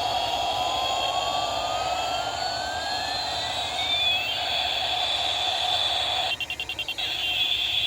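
Steady jet-engine whine with whistling tones that sweep down and then up in pitch. Just after six seconds in, it breaks into a rapid stutter for under a second.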